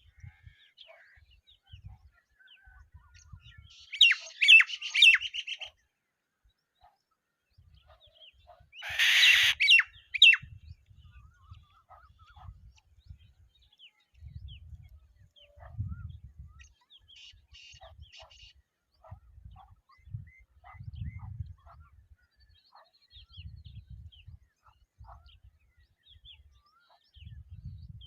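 Birds chirping, with short scattered calls throughout and two loud bursts of rapid chirps about four seconds in and again about nine seconds in, the second harsher and noisier. Intermittent low rumbles sit underneath.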